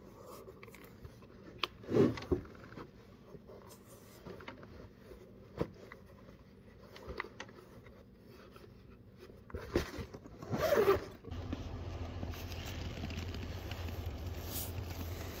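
Someone pulling on winter coveralls and boots: zippers being pulled, clothing rustling and boots scraping on a concrete floor, with louder strokes about two seconds in and again around ten to eleven seconds in. From about eleven seconds in, a steady low outdoor rumble takes over.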